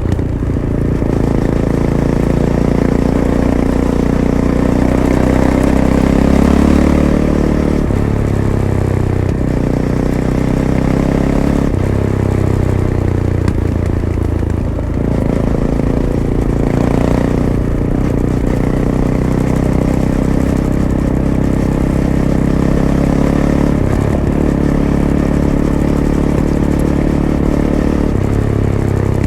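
Fantic Caballero 500's single-cylinder engine through its stock Arrow exhaust, heard from the rider's seat while riding, the revs climbing and dropping several times as the throttle opens and closes and the gears change.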